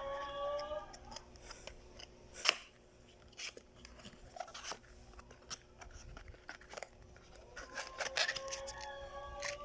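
Crinkling, rustling and clicking of packaging being opened and handled while accessories are unpacked, with one sharp snap about two and a half seconds in. A drawn-out tone gliding slightly upward sounds in the first second and again near the end.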